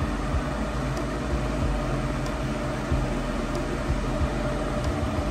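Steady mechanical hum and whir of an electric fan and a small fridge running off a portable power station.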